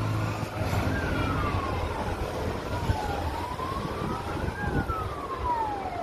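Emergency vehicle siren wailing, its pitch rising and falling slowly about once every three seconds, over a steady hiss of rain and wind.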